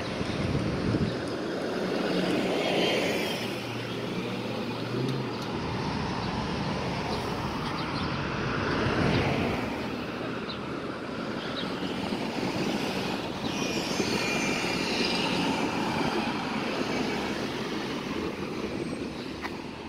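Street traffic: a city bus's engine running close by with a steady low hum as it pulls away, then cars passing with tyre noise, swelling about two and nine seconds in.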